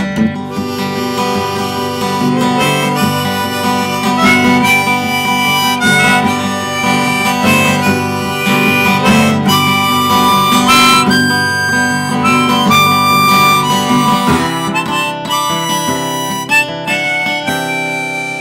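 Harmonica in a neck rack playing an instrumental break of held notes stepping up and down, over strummed acoustic guitar.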